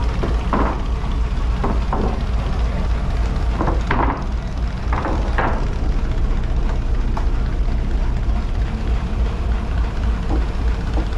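Wooden deck boards knocking and clattering as they are lifted off a boat's fuel-tank hatch: several short knocks in the first half, then none. A steady low rumble runs underneath throughout.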